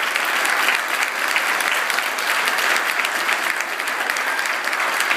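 A congregation applauding: many hands clapping in a steady, sustained round of applause.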